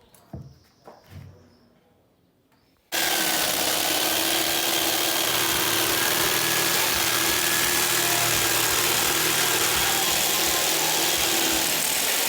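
A few light knocks, then about three seconds in a loud, steady power tool starts abruptly and runs without change, a dense hiss with a faint steady hum under it, until it cuts off at the end.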